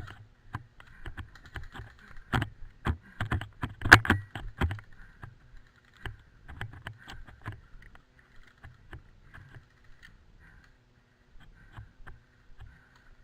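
Irregular clicks and knocks, bunched and loudest around four seconds in, sparser afterwards, typical of an airsoft player's kit rattling and footsteps picked up by a helmet camera while moving.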